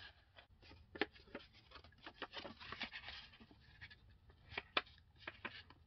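Sheet of letter-size printer paper being handled and creased: faint rustling with scattered crisp ticks, the sharpest about a second in and a pair near the end.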